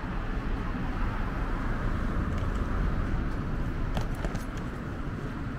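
Steady low rumble of road traffic on a city street, with a couple of faint clicks about four seconds in.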